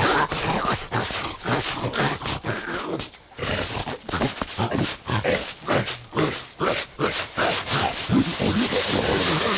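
Cartoon lion and hyena fighting: a rapid, irregular run of grunts and growls mixed with scuffling thumps.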